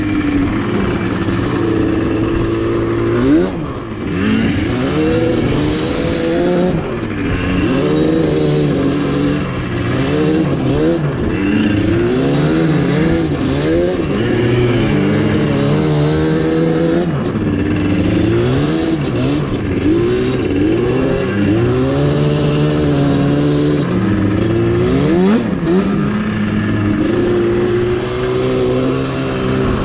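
Two-stroke ATV engine being ridden, its revs climbing and dropping again and again, with a steadier engine note underneath at times.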